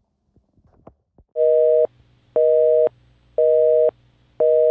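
Telephone busy signal: a steady two-note tone beeping about once a second, half a second on and half a second off, starting about a second and a half in.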